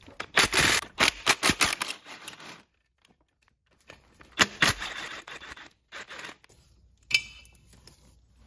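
Metal hand tools and steel bolts clinking, rattling and scraping in irregular bursts, with a single ringing metallic clink near the end.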